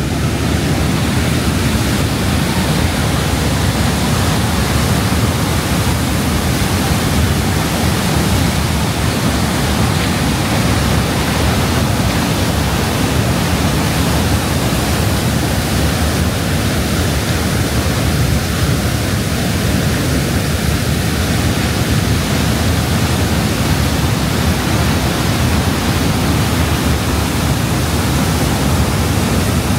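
The American Falls at Niagara: a loud, steady rush of falling water pouring onto the rocks at the foot of the falls.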